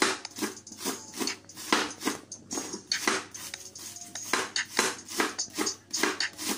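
A sharp kitchen knife shredding a cabbage against a cutting board, in a steady rhythm of about two to three cuts a second.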